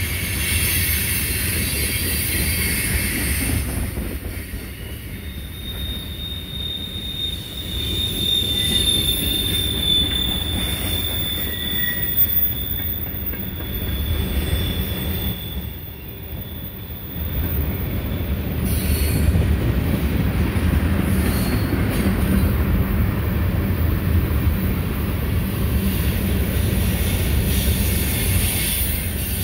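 Two long freight trains rolling past at once, tank cars and double-stack intermodal container cars, with a steady rumble of steel wheels on rail. A long, high-pitched wheel squeal holds for about ten seconds near the middle.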